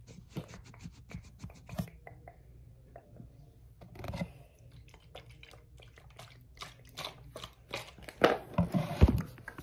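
ASMR-style handling of a marker held close to the microphone: a run of small clicks and taps, with louder bumps and crackling near the end.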